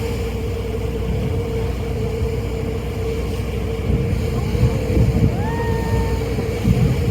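Steady drone of a ferry's engines with a constant hum and low rumble, and wind on the microphone. About five seconds in, a brief tone rises and then holds for under a second.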